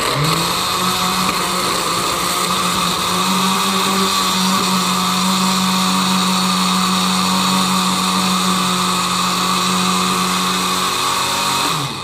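Small electric grinder (mixer-grinder jar) running, grinding bread slices into crumbs. Its motor spins up at the start, runs at a steady high speed, and winds down as it is switched off near the end.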